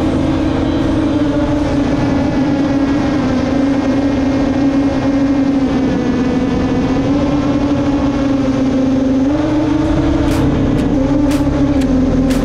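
FPV racing drone's motors and propellers whining steadily, the pitch rising and dipping a little with throttle, higher about a second before the end of the first stretch and again near the three-quarter mark. A few sharp high ticks come near the end.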